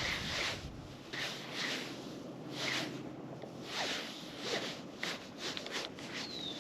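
Spinning reel being cranked to retrieve a swimbait after a cast: a run of uneven, zipper-like rasps from the reel's turning handle and gears. A brief high whistle, falling in pitch, comes near the end.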